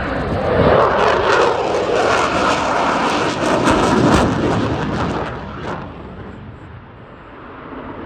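F-22 Raptor's twin Pratt & Whitney F119 afterburning turbofans passing close by: a loud rushing jet noise with crackling that swells twice, then fades away over the last few seconds.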